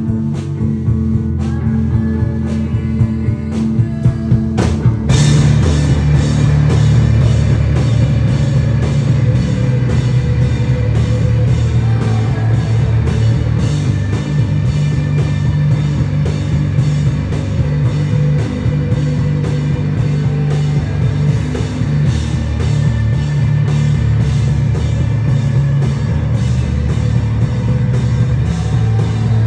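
Live rock band playing: electric guitars, bass and drum kit through a small PA and amps. For about the first five seconds the guitar plays on its own with a few hits, then the full band comes in at once and plays on with a steady drum beat.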